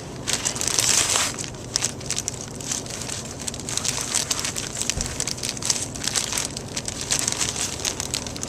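Packaging rustling and crinkling in irregular crackles as throttle cables are handled and pulled out of it, loudest about a second in.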